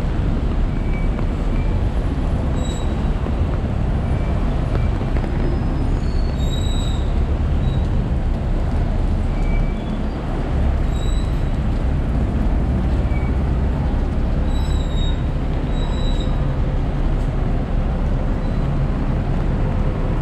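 City buses and traffic running on a rain-wet road: a steady low rumble under a constant hiss of rain and tyres, with short high squeaks now and then.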